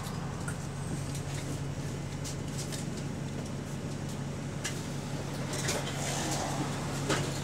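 Double-decker bus engine idling at a stop, a steady low hum inside the saloon, with a few light clicks and a sharp knock about seven seconds in.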